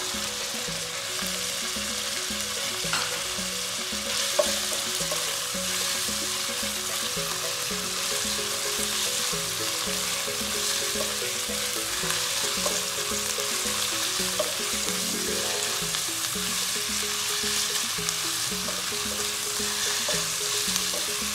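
Shrimp, liver and onion sizzling steadily as they are stir-fried in a hot oiled pot, with a couple of light knocks of the stirring spoon.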